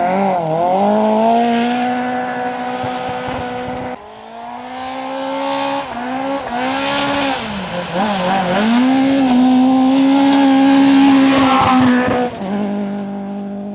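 Citroën C2 R2 rally car's engine revving hard at high speed, the note falling and rising again several times. The sound cuts off suddenly about four seconds in, and then a second hard-driven run is heard, loudest near the end.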